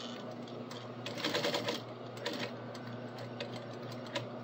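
Industrial sewing machine stitching through nylon webbing: a quick run of rapid needle strokes about a second in, over a steady hum, then a few single clicks.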